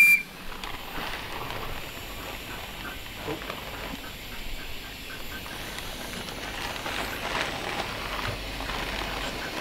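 A miniature steam locomotive's whistle gives a short high blast that cuts off right at the start. It is followed by a steady low background hiss with faint soft ticks.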